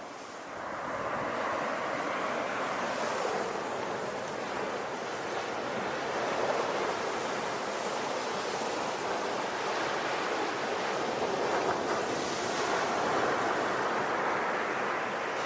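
Sea waves breaking and washing on a shore, a steady surf with slow swells in level.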